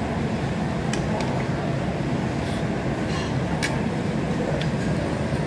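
Steady low rumble of food-centre background noise, with a few sharp clinks of dishes and cutlery.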